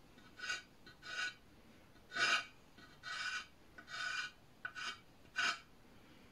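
Stick of chalk scraping across a terracotta plant pot in short sketching strokes, about eight of them, each under half a second.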